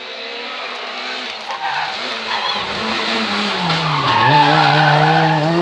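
Rally car on a special stage, its engine note falling to a low dip about four seconds in and then pulling up again, with the tyres skidding and squealing as it drifts through the corner.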